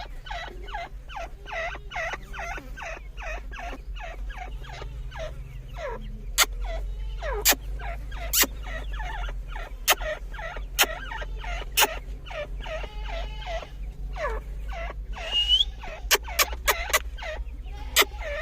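A group of teetar partridges calling: a rapid run of short chattering calls, with sharp loud clicks breaking in every second or so from about six seconds in, over a steady low hum.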